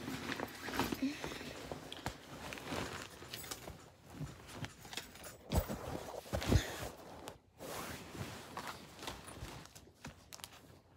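Rustling and handling noise from a phone being picked up, moved and set down, with scattered clicks and two low thumps about five and a half and six and a half seconds in.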